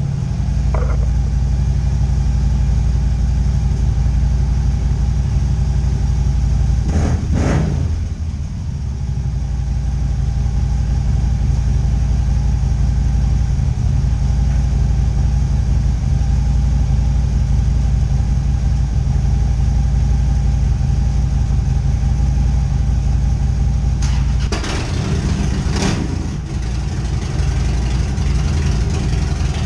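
Motorcycle engine idling with a steady low rumble, revved briefly twice: once about seven seconds in and again, in a longer pair of blips, about twenty-five seconds in.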